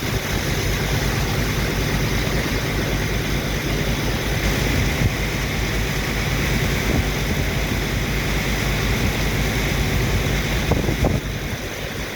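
Heavy engine of a sand-dredging and pumping machine running steadily with a low, even hum, dipping slightly near the end.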